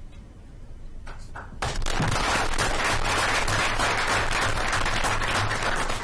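Audience applauding: a few scattered claps, then full clapping breaks out about a second and a half in and holds steady.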